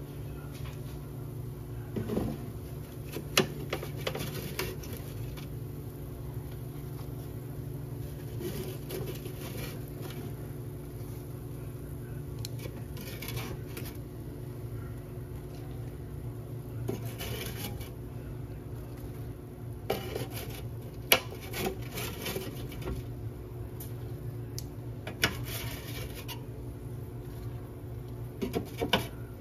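Metal kitchen tongs clicking and scraping against the metal grill of an air fryer basket as chicken tenders are picked out, in scattered sharp clicks and knocks every few seconds over a steady low hum.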